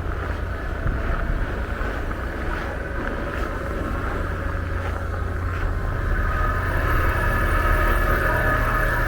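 A motor vehicle running over a steady low rumble, getting louder toward the end as a steady whine in it comes up.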